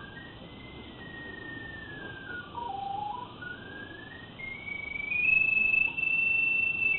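Pipe locator's electronic tone from a sewer-camera inspection, a single steady beep-tone whose pitch steps with signal strength as it is swept over the camera head's sonde. It slides down to a low pitch about three seconds in, then climbs to a higher, louder tone held over the last two seconds, the sign of a stronger signal near the sonde.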